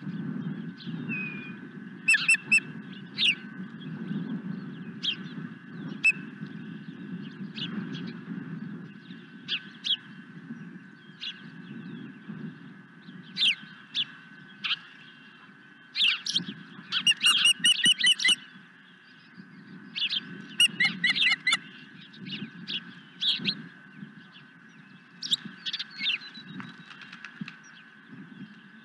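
Osprey calling: short, sharp, high whistled chirps, with a rapid run of repeated chirps a little past halfway and another cluster soon after, over a steady low rumble.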